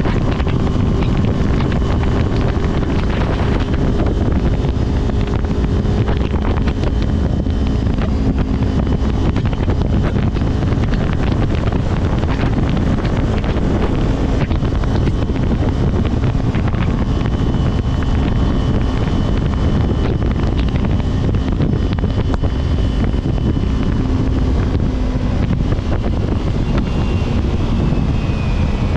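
Wind buffeting the microphone over a vehicle engine running steadily while travelling along a road.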